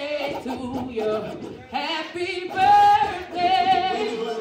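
A woman singing into a microphone, holding long notes with vibrato.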